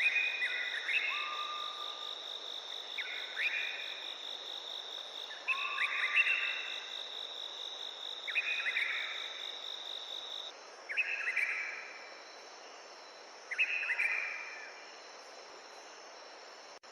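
Forest stream ambience: a steady rush of water under an insect's high, continuous pulsing trill, which stops about ten seconds in. Short call phrases repeat every two to three seconds throughout.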